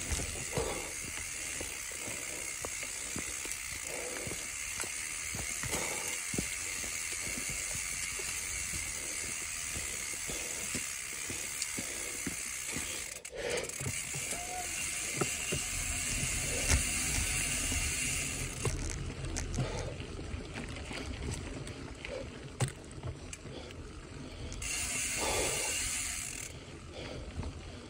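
Mountain bike coasting down a dirt singletrack: a steady hiss and rumble of the tyres on dirt and leaf litter, the rear freehub ratcheting, and short sharp knocks and rattles as the bike goes over bumps.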